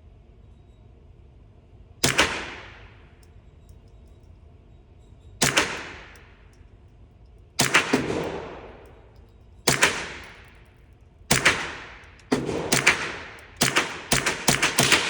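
.22 firearm fired shot by shot, each report trailing off over about a second. The shots come a second or two apart at first, then quicken into a rapid string near the end.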